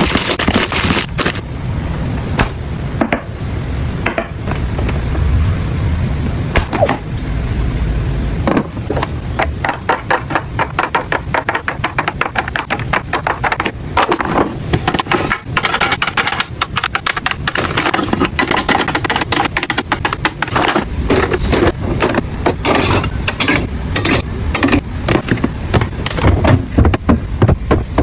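Rapid clatter of containers, jars and bottles being handled and set down while restocking a fridge: many quick clicks and knocks, coming thicker in the second half.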